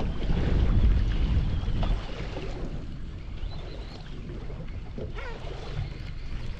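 Fishing boat under way: the motor's low rumble with wind buffeting the microphone, loudest in the first two seconds and then steadier and quieter.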